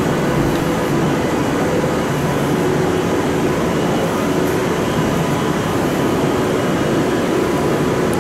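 Steady hum and hiss of a Class 319 electric multiple unit standing at the platform with its onboard equipment running, with a few faint steady tones through it.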